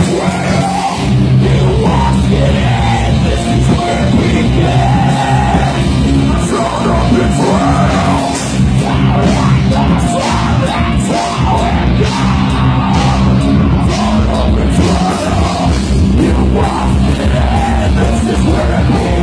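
Heavy metal band playing loud and live, with distorted guitars, bass and drums.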